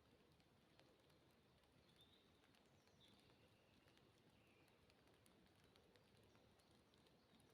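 Near silence: very faint rainy-forest ambience, a soft steady hiss with scattered faint drip ticks and a few distant high bird chirps in the first half.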